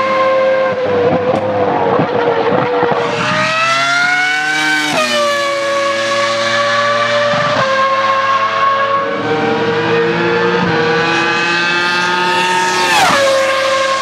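Ferrari Formula 1 car engine running at high revs. The pitch climbs as the car accelerates and drops sharply at each gear change, clearly about 5 s in and again near the end.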